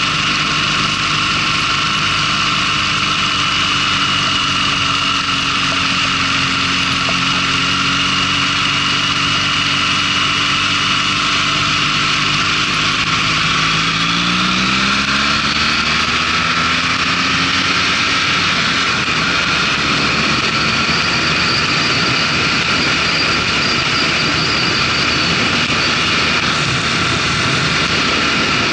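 Motorcycle engine running steadily, then rising in pitch as it accelerates about halfway through. Rushing wind noise builds as speed climbs and covers much of the engine near the end.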